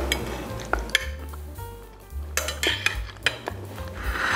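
Metal fork clinking against a plate of pasta, a few short sharp clinks as it picks up the food.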